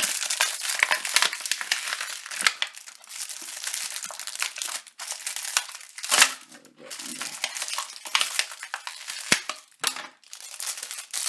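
Packaging crinkling and rustling with many small crackles as the contents of a small box are handled and pulled out, with a few sharper clicks along the way.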